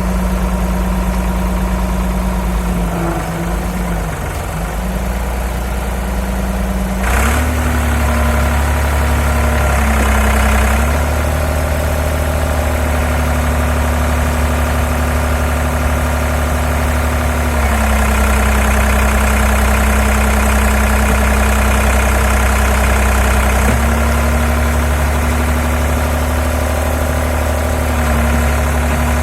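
Doosan DX35z mini excavator's diesel engine running steadily. Its pitch dips a few seconds in, steps up about seven seconds in, and then shifts slightly up and down a few more times.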